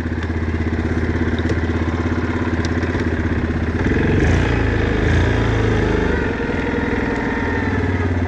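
Yamaha Kodiak 400 quad's single-cylinder four-stroke engine running as it rides, with a rapid, even pulse, picking up and getting louder about four seconds in as the throttle opens.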